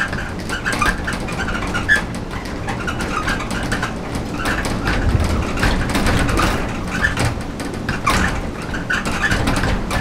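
Stormy typhoon wind blowing in gusts, its low rumble swelling about halfway through, with small birds chirping.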